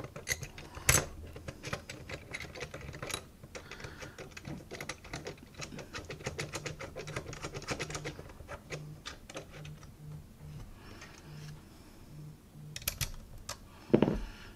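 A camera-cage top handle being screwed on by hand: a dense run of small clicks and taps that thins out after about eight seconds, with a sharp knock about a second in and a louder thump near the end.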